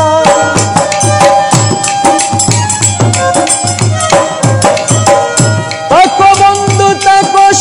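Harmonium playing held notes of a Bengali baul folk tune, over a steady hand-drum beat of about two strokes a second. About six seconds in, a new note slides up and is held.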